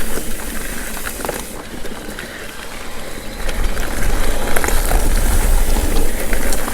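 Mountain bike rolling over a rocky dirt trail: tyre noise with scattered clicks and rattles from the bike, over a low rumble that eases off briefly and then grows louder about halfway through.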